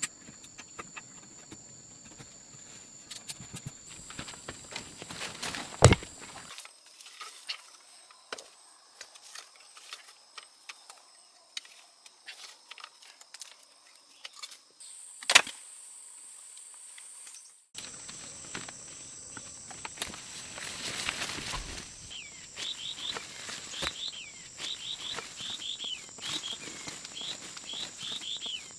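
Outdoor ambience with a steady high insect drone and scattered small taps and rustles, broken by two sharp knocks about six and fifteen seconds in. Rapid short high chirps fill the last several seconds.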